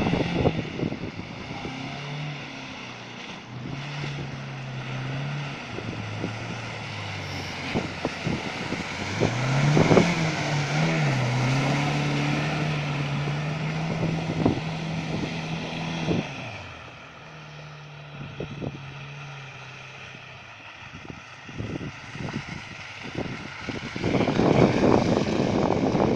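Land Rover Discovery's engine labouring through deep water, revving up about ten seconds in and holding under load for several seconds before easing off, with a rushing wash of water throughout.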